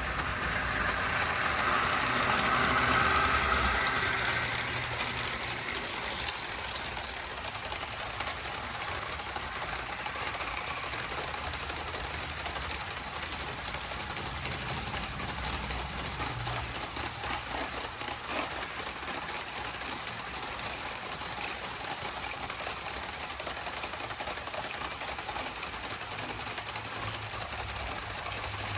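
Train running on jointed track, its wheels clicking steadily over the rail joints. It swells louder for the first few seconds, then settles into an even clatter.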